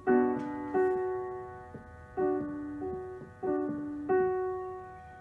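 Digital piano played with a piano sound: a slow run of notes and chords, about six struck in turn and each left to ring and fade, the last one dying away near the end.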